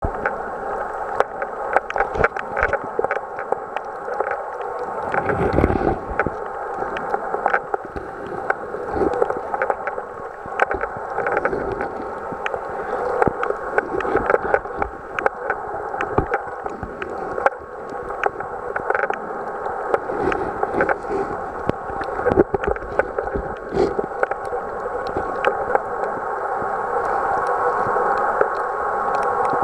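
Muffled underwater sound picked up by a camera submerged in a shallow tide pool: a steady dull water rush with frequent small clicks and crackles, and a brief low thump about five seconds in.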